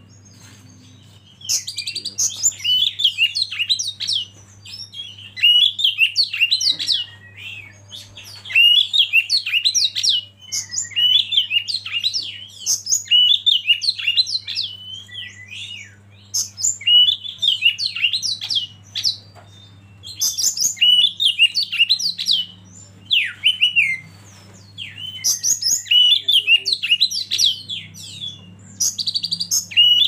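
Oriental magpie-robin (kacer) singing: quick, varied whistled phrases a second or two long, separated by short pauses, over a faint steady low hum.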